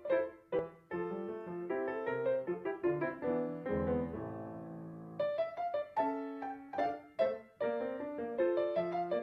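Piano music: quick struck notes and chords, with one chord left to ring and fade about four seconds in before the playing picks up again.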